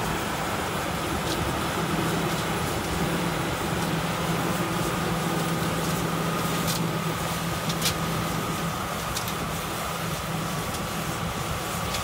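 John Deere combine harvester running steadily while harvesting lentils: a low, even engine hum with a faint steady whine above it and a few light clicks.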